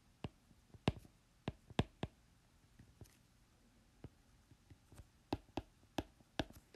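Pen tip clicking against the writing surface while words are handwritten: a dozen or so faint, sharp, irregularly spaced taps.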